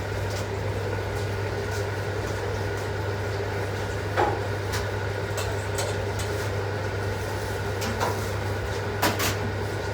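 Steady low hum with scattered light clicks and knocks of objects being handled, the loudest a quick pair of knocks near the end.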